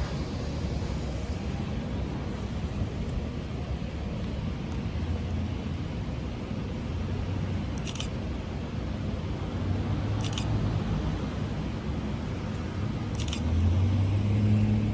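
Steady low rumble of road traffic, with an engine hum growing louder near the end and a few faint clicks.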